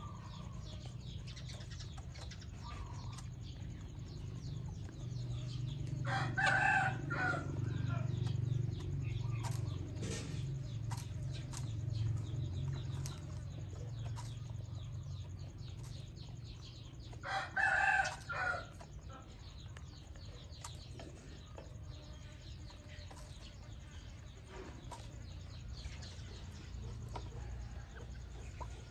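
Chickens clucking as they peck at feed, with a rooster crowing twice: once about six seconds in and again about eighteen seconds in.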